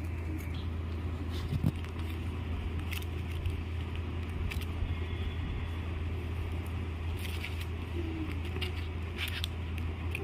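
A steady low hum, with scattered light clicks and rustles of paper strips being handled; one sharper click about two seconds in.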